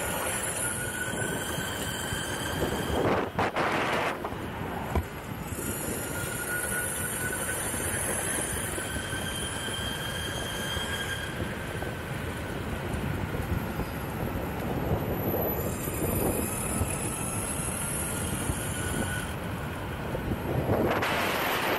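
Electric skateboard riding on asphalt: its hub motors give a thin whine that rises and falls a little with speed, over the steady rumble of urethane wheels rolling. A louder rush of noise comes about three seconds in and again near the end.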